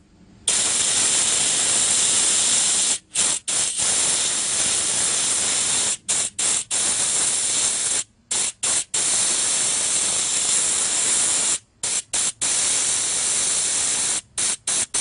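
Factory nitrogen holding charge hissing out of a ductless mini-split indoor unit's refrigerant line as the flare cap is loosened: a steady, loud rush of escaping gas, broken by several brief silent gaps. Pressure coming out is the sign the evaporator held its charge and has no leak.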